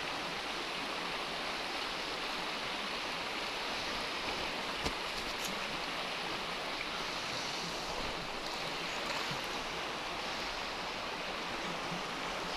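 River water flowing, a steady rush with no break. A single light click about five seconds in.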